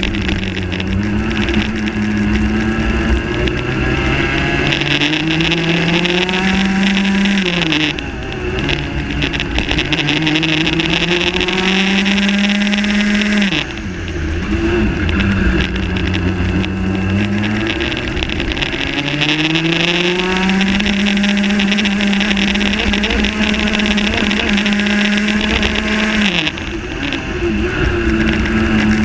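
Rotax Max 125cc single-cylinder two-stroke kart engine at full throttle, heard from on board. Its pitch climbs steadily along each straight and drops sharply when the driver lifts off for a corner, three times.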